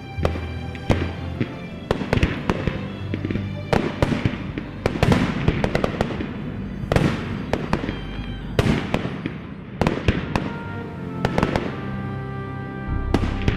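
Fireworks bursting, with sharp bangs every second or so, each trailing off in a crackle and echo. Background music with held tones plays under them.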